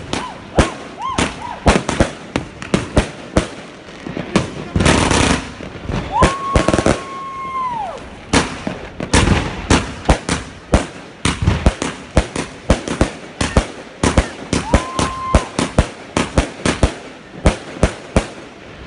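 Klasek Bobr fanned firework cake firing a rapid, uneven barrage of bangs and crackling bursts. A rushing hiss comes about five seconds in, then a steady whistle lasting over a second, and a shorter whistle near fifteen seconds.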